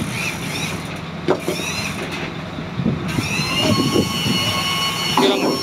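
Fishing boat's machinery running with a steady low hum, a few sharp knocks, and a high steady whine that sets in about three seconds in.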